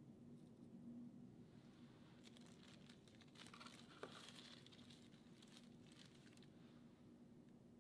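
Faint rustling and light ticks of crushed Oreo cookie crumbs being tapped off a plastic spoon, with one small click about four seconds in, over a low steady hum; otherwise near silence.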